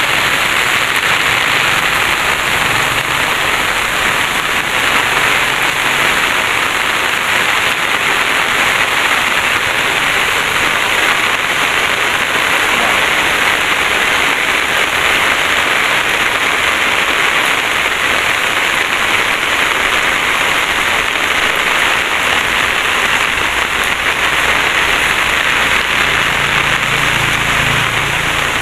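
Steady rain falling: an even, unbroken hiss of rain on the surrounding foliage.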